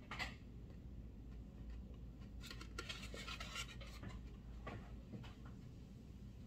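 Faint rustling and scratching, loudest for about a second near the middle, with a few light clicks, over a steady low room hum.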